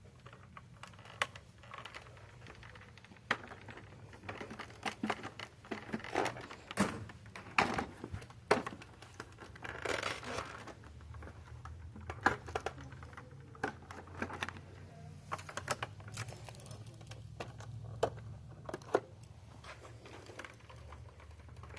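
Irregular clicks, taps and rattles of small hard objects being handled, with a faint low hum underneath that grows a little stronger about halfway through.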